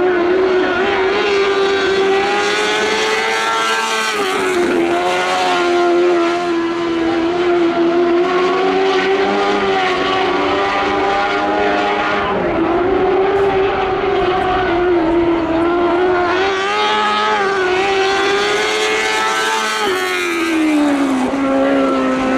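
A lightning sprint car's engine running at high revs on the dirt track. Its pitch sags and climbs back about every eight seconds, at about 4, 12 and 20 seconds in.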